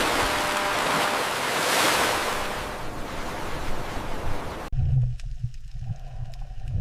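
Ocean waves washing. About two-thirds of the way through they cut off abruptly and a low, steady rumble takes over.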